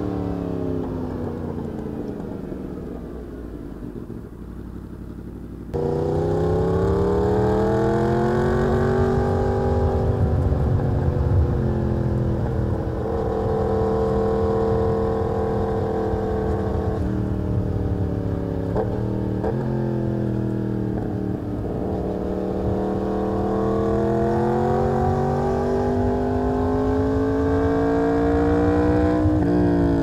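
Yamaha MT-10's crossplane inline-four engine heard from the rider's seat. It winds down off the throttle for the first few seconds, jumps louder as the throttle opens about six seconds in, then rises and falls in pitch with a few abrupt breaks as the rider works through the gears on twisty roads.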